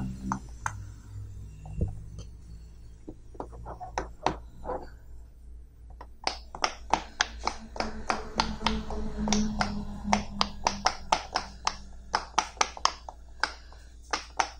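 Silicone pop-it fidget toy bubbles pressed in one at a time with a fingertip, each giving a short pop. The pops are scattered at first, then come in a quick run of about three to four a second from about six seconds in.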